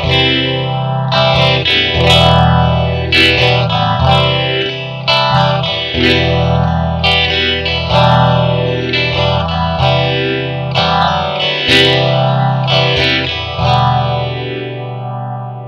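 Electric guitar chords, from a Squier Telecaster, played through a Maestro Orbit Phaser pedal, the phaser sweep rising and falling about once a second. Near the end the last chord rings on and fades.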